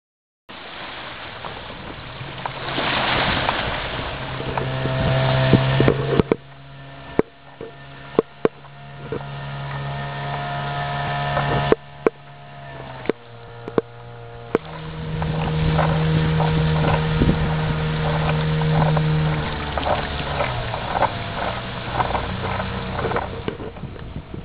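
Small motorboat's engine running under way, its pitch and level shifting with throttle, over a wash of water and wind noise with scattered sharp knocks.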